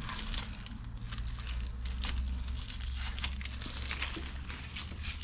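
Protective plastic film being peeled off the stainless steel panels of a tool roll cabinet: a crackly tearing and crinkling that comes in a run of uneven pulls.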